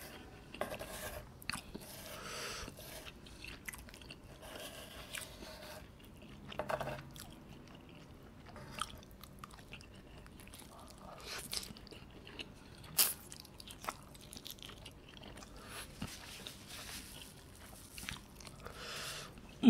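Close-miked eating of a melted-cheese-topped dumpling: soft wet chewing and mouth sounds, broken by scattered sharp clicks and smacks.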